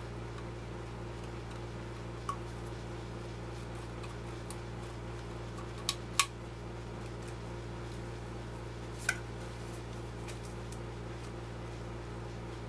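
A handful of short, sharp clicks and taps of small hard parts being handled, five in all and scattered, the loudest about six seconds in, over a steady low hum.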